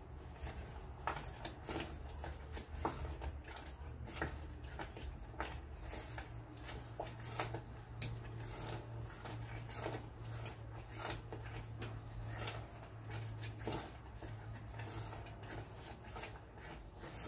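Silicone spatula stirring thick brigadeiro back on the heat in an aluminium saucepan: irregular soft scrapes and knocks against the pan's sides and bottom, over a low steady hum.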